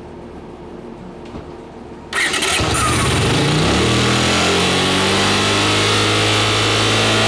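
1980 Honda CX500's liquid-cooled V-twin engine firing up about two seconds in, its pitch climbing quickly, then holding a high, steady idle. It revs real high, which the owner puts down to something wrong in the carburettor setup.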